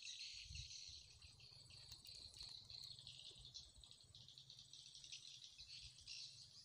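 Faint, steady high-pitched chirring of insects in a dense chorus, with a faint low hum beneath.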